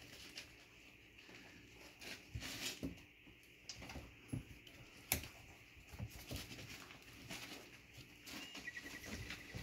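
Doodle puppies' paws pattering and scratching over puppy pads and wood-pellet litter, a scatter of light clicks with one sharper knock about five seconds in. Near the end a faint thin chirping, typical of the tweeting toy ball a puppy is nosing.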